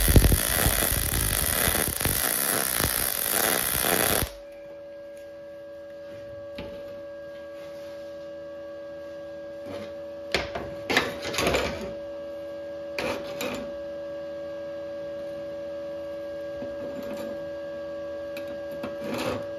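MIG welding arc from an Arc Captain MIG 200 inverter welder, a loud steady crackling sizzle of the wire feeding into the weld, cutting off abruptly about four seconds in. A steady hum remains afterwards, with a few short metal clinks as the hot welded steel pieces are handled with pliers.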